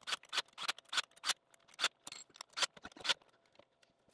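Irregular sharp clicks and taps of hand tools working a clamp and bolts on the CNC router's linear rail, about four a second for roughly three seconds, then only a few faint ones.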